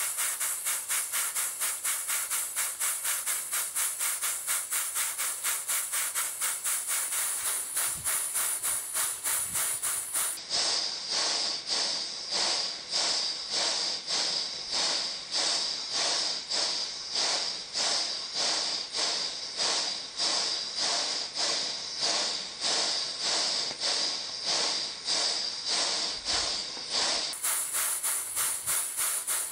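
Twin-cylinder horizontal model steam engine running on steam, its exhaust giving an even, rhythmic hissing chuff. The exhaust steam is piped into a tub of water. About ten seconds in, the beat becomes slower and sharper.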